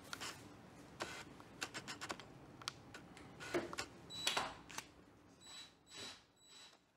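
Irregular small clicks, taps and rustles of hands handling a barn door floor guide and a cordless drill, setting the drill bit against the guide; the loudest taps cluster about halfway through, and a faint thin whine appears in the second half.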